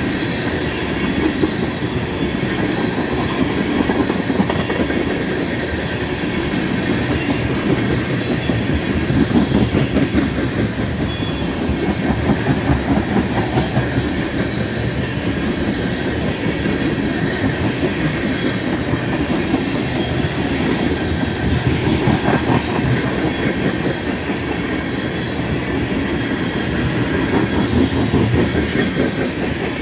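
Railroad tank cars rolling past close by: a steady rumble of steel wheels on the rails with a rapid clickety-clack over the rail joints.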